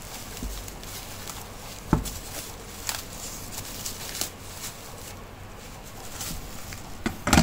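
Clear plastic wrapping crinkling and cardboard rustling as a parcel is pulled open by hand, with a sharp tap about two seconds in, another a second later, and a cluster of clicks near the end.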